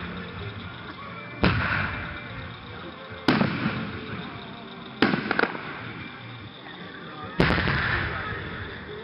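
Aerial firework shells bursting: four sharp booms about two seconds apart, each trailing off in a long echo, the third followed closely by a second crack.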